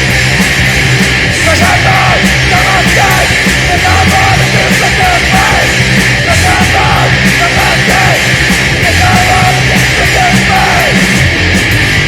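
Loud, heavily distorted punk/metal music with yelled vocals over dense guitars and drums.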